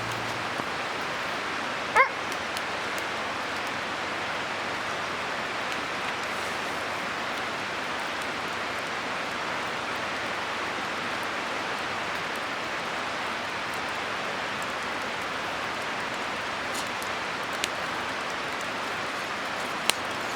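A river rushing steadily, with one short, sharp dog bark about two seconds in and a few faint clicks near the end.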